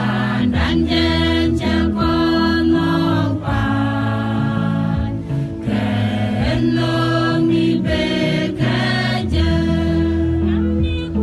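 A mixed church choir of men and women singing a gospel song together.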